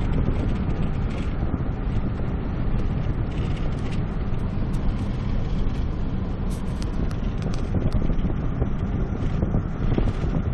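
A car driving along a road, heard from inside the cabin: a steady low rumble of road and engine noise, with wind buffeting the microphone.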